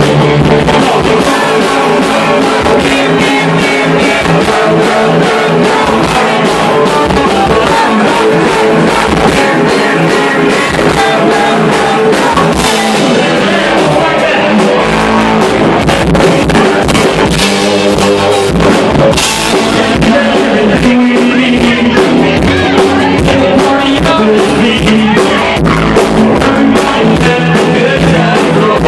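Live band playing loud with vocals, electric guitar and drum kit, heard from within the crowd.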